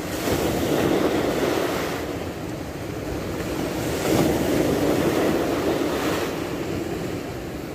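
Small sea waves washing in and breaking just below, swelling twice, about a second in and again around four seconds in, the second the louder, with wind buffeting the microphone.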